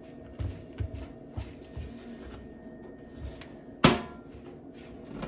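Wooden spoon stirring thick, sticky almond-flour dough in a mixing bowl. The spoon makes soft, dull bumps about twice a second, and there is one sharp knock about four seconds in.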